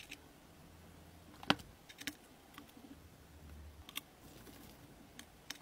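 Metal tweezers and small metal model-engine parts clicking and tapping on a stainless-steel tray: about seven light, sharp clicks at uneven intervals, the loudest about a second and a half in.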